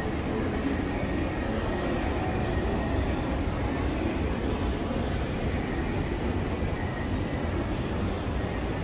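Steady city street background: a low, unbroken rumble of traffic and crowd noise with faint voices mixed in.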